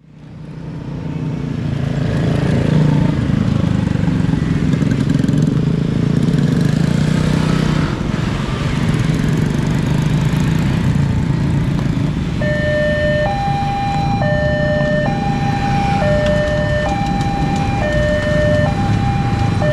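Motorcycles and cars crossing with their engines running. About two-thirds of the way through, the level crossing's warning alarm starts: two notes alternating, each held just under a second. It signals that the crossing is closing for an approaching train.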